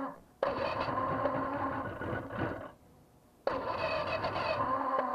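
A motor on a 1983 Skeeter bass boat runs in two bursts of about two seconds each. Each burst starts and stops abruptly, with a short pause between them.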